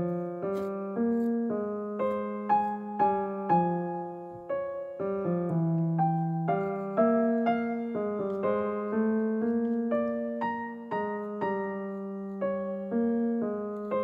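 Background piano music: a gentle melody of single notes, each struck and fading, over held lower notes, roughly two notes a second.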